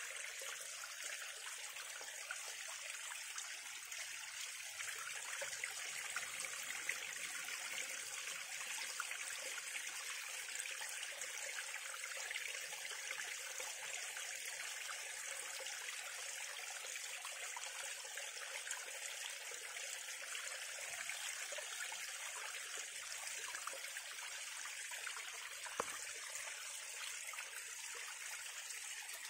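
Water cascading over mountain stones in a steady, even rush, with one sharp click near the end.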